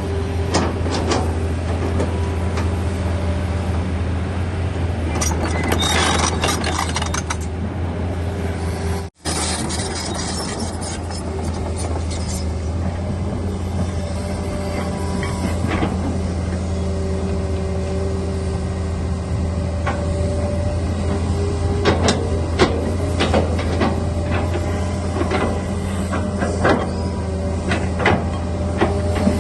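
Hitachi excavator's diesel engine running steadily, with intermittent metallic squeaks and clanks. A brief dropout about nine seconds in.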